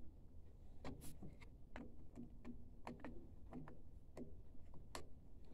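Faint, irregular small clicks and ticks of hands working at plastic parts and cables on a printer's print-head carriage.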